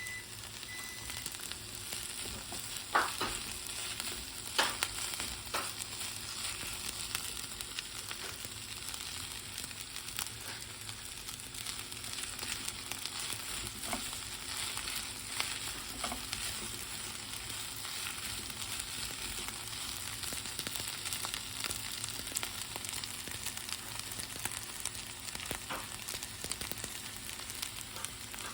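Food sizzling steadily in a hot frying pan, with a few sharp clicks from the pan and utensil, the loudest two a few seconds in.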